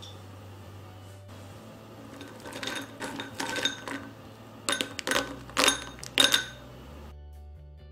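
Crisp toasted bread cubes clattering into a bowl: a run of light, dry taps and rattles starting about two and a half seconds in, loudest about five to six seconds in, then stopping. Soft background music plays beneath.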